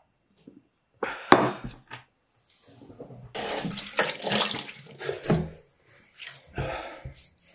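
Water from a tap running into a sink and splashed from cupped hands, with a sharp knock about a second in.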